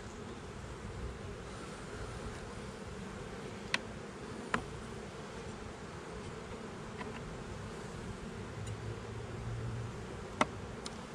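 Honeybees buzzing in a steady hum around an opened hive box, with a few sharp clicks as the frames are handled, about four seconds in, half a second later and near the end.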